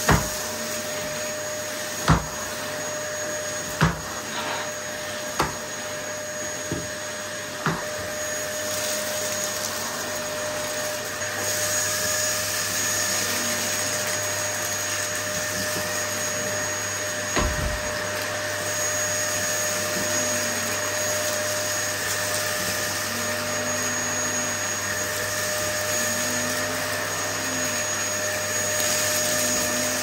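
Dyson DC08 Telescope cylinder vacuum cleaner running steadily with a high whine while its floor head picks up dust and debris from a carpet. Several sharp knocks come in the first eight seconds and one more about 17 seconds in.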